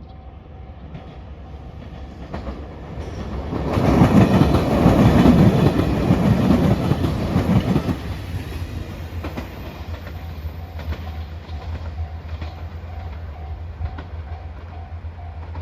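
A train passing over a level crossing: it swells up, is loudest for about four seconds, then fades away. The crossing's warning bell rings in a steady repeating pattern before and after the train is at its loudest.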